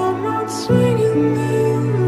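Soft, slow background music with sustained notes, changing chord about a second in.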